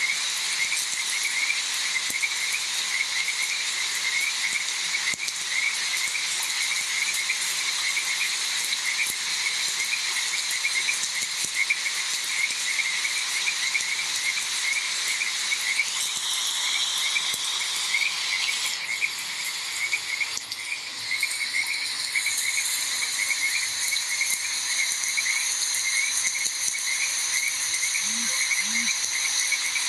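A chorus of frogs calling in a fast, steady run of short repeated croaks over an even hiss, with insects joining in. A high, steady insect drone sets in about two-thirds of the way through.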